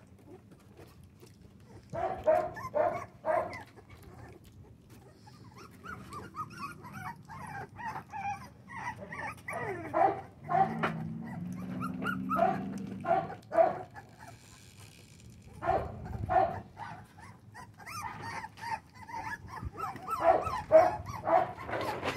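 A litter of four-week-old American bully puppies whining and yipping: short high-pitched cries, many in quick succession, in bursts with brief pauses.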